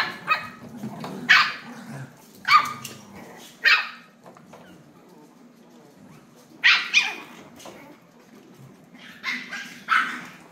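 Chihuahuas yipping and barking in play: short, sharp, high-pitched barks every second or so, with a pause of a few seconds midway.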